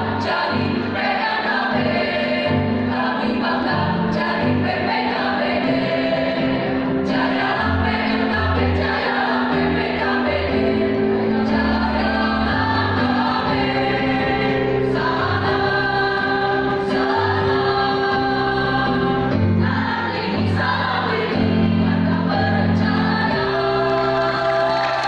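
A choir singing a song in harmony, with sustained chords that change every second or so over a moving bass line.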